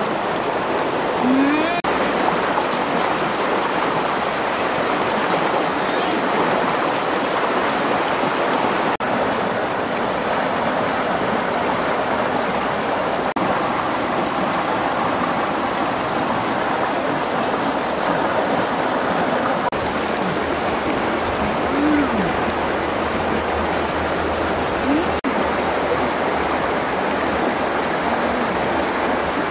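Shallow river running over rocks: a steady rushing of water.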